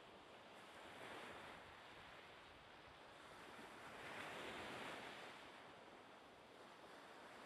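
Faint wash of sea waves and wind, a soft noise that swells and fades, loudest about four to five seconds in.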